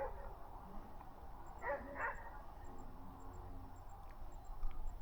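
Two short animal calls in quick succession, about half a second apart, over steady background noise.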